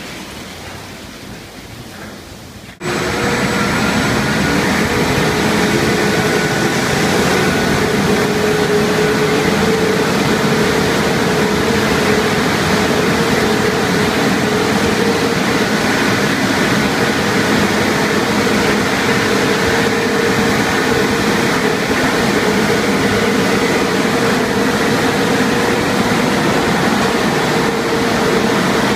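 Car wash tunnel dryer blowers switching on abruptly about three seconds in, then running with a loud, steady rush of air and a steady hum as the car passes through the drying stage. Before they start, a quieter hiss of the wash.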